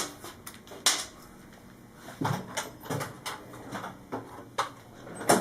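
Scattered metallic clicks and knocks of a motorcycle chain adjuster and axle parts being handled and fitted at the swingarm end, with sharper clicks about a second in and near the end.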